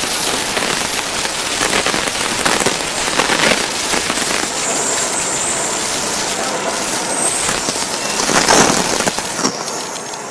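Shinkansen bullet train arriving at a platform: a loud, steady rushing noise from the passing train, with a faint high whine in the middle.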